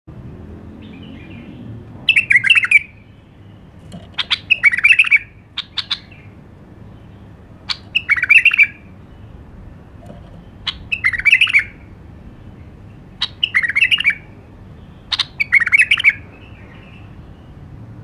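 White-eared bulbul singing: about six short, loud warbled phrases of roughly a second each, repeated every two to three seconds, several of them opening with a quick sharp note or two.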